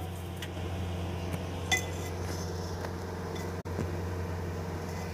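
A spoon skimming the foam off simmering dal in a clay handi, with a few light clinks of the spoon against the pot and a bowl over a steady low hum.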